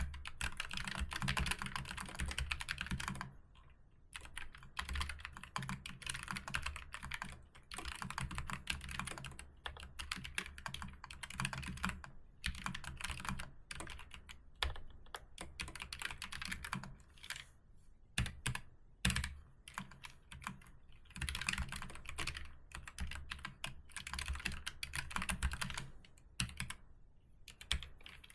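Typing on a keyboard: fast runs of key clicks broken by short pauses every few seconds.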